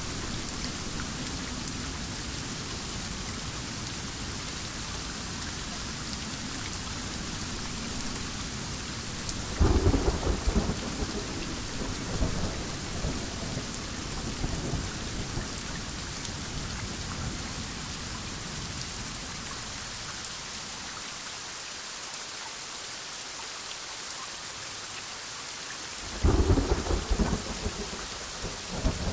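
Heavy rain falling steadily, with two sudden cracks of thunder: one about a third of the way in that rolls on for several seconds, and another near the end.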